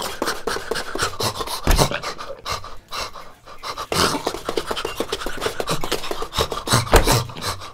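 Cartoon dog panting rapidly and scuffling as it wriggles on the floor, with a couple of soft thumps, one about two seconds in and one near the end.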